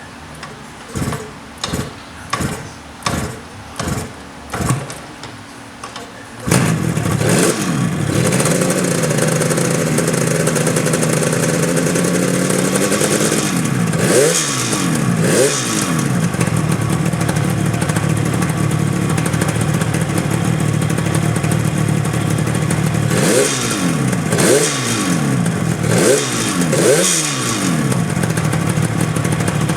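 Freshly rebuilt Yamaha RD350 two-stroke twin being started: about six short sputters as it is kicked over, then it catches about six seconds in and runs steadily, with quick throttle blips twice around the middle and four more near the end.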